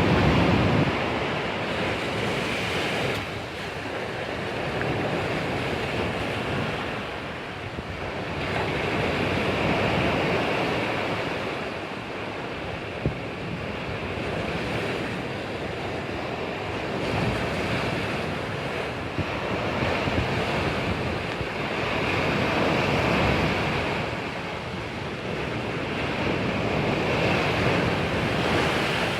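Sea waves breaking and washing in continuously, the surf swelling and fading every few seconds, with some wind rumble on the microphone.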